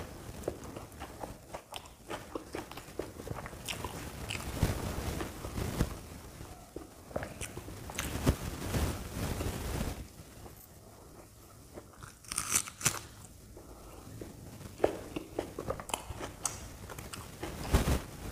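Biting, crunching and chewing crisp deep-fried puri dipped in potato curry, a run of short crackly crunches with louder bites about two-thirds of the way in and near the end.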